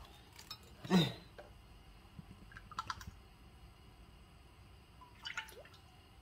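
Cooking oil poured from a plastic bottle into a glass measuring cup and then into a pot, with faint trickling and dripping and a few light clicks of bottle and cup. A brief pitched sound stands out about a second in.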